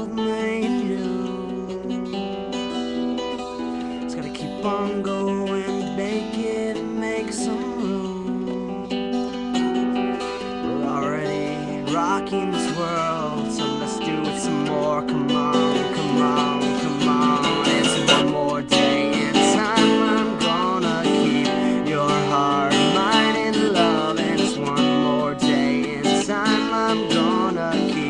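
Acoustic guitar strumming through an instrumental passage of a song, with a melody line weaving over it that grows fuller and a little louder from about halfway through.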